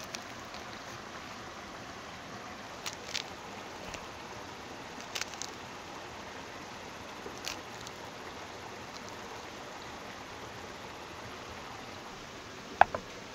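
Pomegranate rind cracking and tearing as hands pull the scored fruit apart: a few crisp cracks over a steady background hiss. Near the end comes a single sharp, ringing click, the loudest sound.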